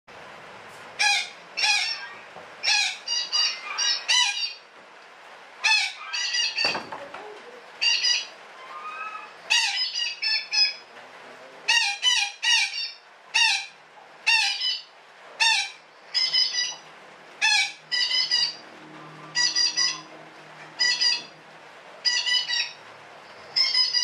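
A betet parakeet (Psittacula) giving a long 'ngekek' chattering run of loud, harsh squawks, coming in quick clusters of two to four calls with short pauses between.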